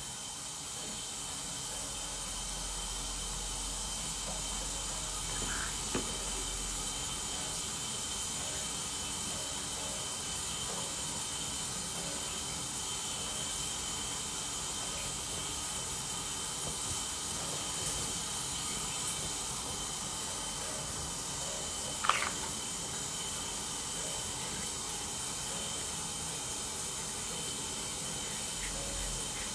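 A steady hiss with no speech, broken only by a single short click about 22 seconds in.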